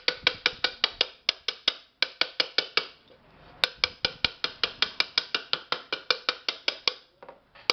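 Claw hammer tapping lightly and quickly on the rim of an aluminium pressure-cooker lid, about six or seven ringing taps a second, with two short breaks around two and three seconds in. It is straightening the lid where it is bent out of true.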